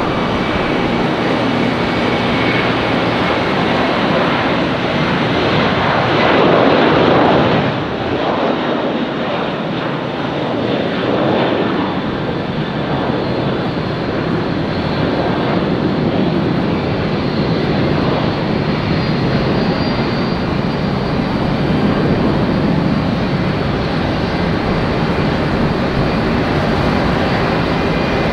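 Jet airliner's engines, a dense continuous rush of noise that swells to its loudest about six to seven seconds in, drops a little, then holds steady.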